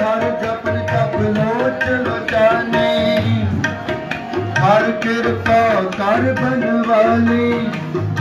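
Music with tabla drumming under a melodic line that holds notes and slides in pitch.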